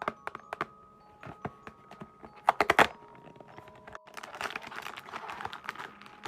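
Sharp clicks and taps of small items and packaging being handled, with a cluster of louder clicks a few seconds in, followed by rustling of packaging.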